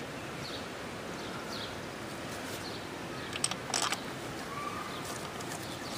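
A few light clicks of a hand driver against the engine side-cover bolts as they are started by hand, about three and a half seconds in, over steady outdoor background with faint bird chirps.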